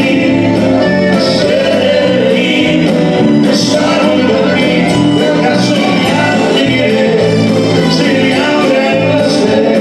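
Live Tejano band playing, with a man singing the lead vocal over a steady, repeating bass line.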